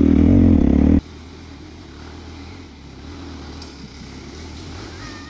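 Dirt bike engine running loud and close for about the first second, then dropping suddenly to a much quieter, steady engine drone.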